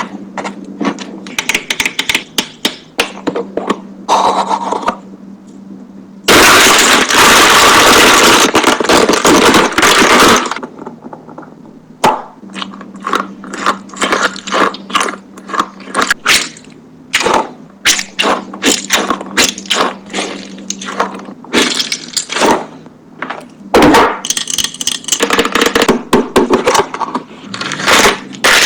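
Close-up handling of plastic fidget toys: rapid irregular clicking, cracking and scraping. About six seconds in comes a loud, continuous crunching that lasts about four seconds. A steady low hum runs underneath.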